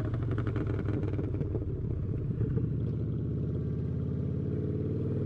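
Motorcycle engine running steadily at low revs, its pitch starting to rise slightly near the end.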